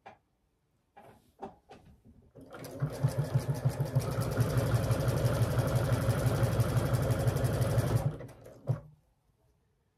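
Domestic sewing machine stitching a jacket side seam at a steady speed, with a rapid even stitching rhythm for about five seconds before it stops. A few light clicks of fabric handling come just before it starts, and a single knock follows soon after it stops.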